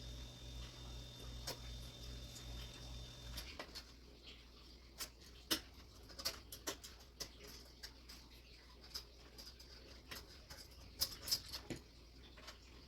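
Scattered light clicks and taps of computer case parts and fans being handled during assembly. A steady low hum with a faint high tone cuts off about three and a half seconds in.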